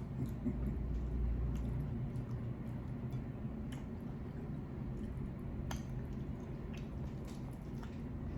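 Close-miked eating: chewing and wet, squishy mouth sounds, with scattered small clicks.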